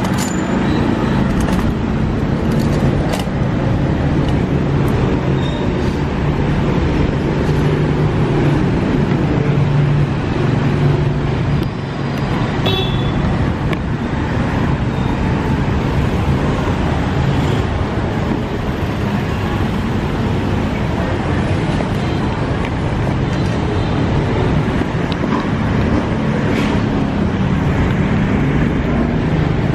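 Steady street traffic noise from passing motor vehicles, with a low engine hum that holds for a few seconds in the first half.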